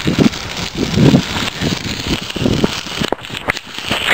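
Bicycle ridden along a gravel path: a steady crunch and rattle from the tyres and frame, with low rumbles of wind buffeting the microphone every second or so.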